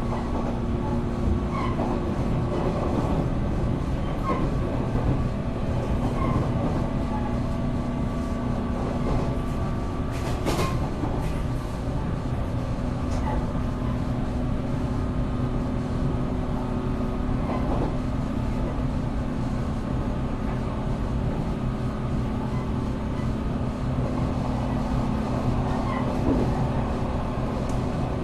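Onboard running sound of a JR West 475 series express-type EMU, heard inside a motor car: MT54 traction motors and gearing hum at a steady pitch over a continuous rumble of wheels on rail. One sharp click comes about ten seconds in.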